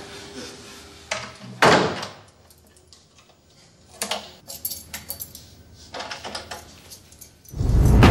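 A round metal door knob being gripped and turned, clicking and rattling in short spurts, with a sharp knock early on. Near the end a loud low rumble sets in.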